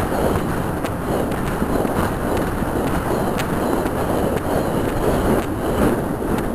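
Horse galloping cross-country on a dirt woodland track, heard from a camera carried by the rider: a constant rush of noise with irregular hoofbeat thuds.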